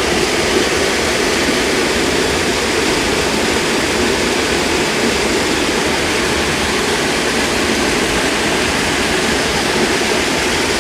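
Creek waterfall pouring into a deep pool: a steady, loud rush of falling water with no change throughout.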